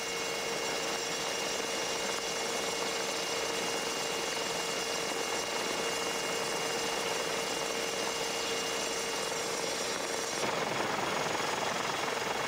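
Steady helicopter engine and rotor noise: an even rushing hiss with steady whining tones in it. About ten seconds in the higher tones drop away and the hiss turns rougher.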